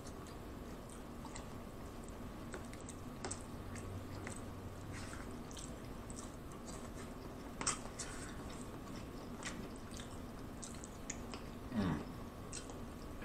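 Quiet mouth sounds of a man chewing baked mostaccioli al forno pasta, with small scattered wet clicks from his mouth and fork, and a brief louder sound near the end.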